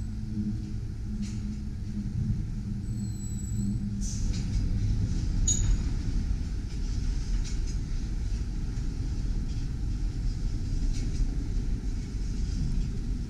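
A shop transfer table runs with a steady low hum while carrying a TTC CLRV streetcar across the floor. The hum stops about five seconds in, after a couple of sharp clicks. The streetcar then rolls slowly forward off the table with a low, steady rumble.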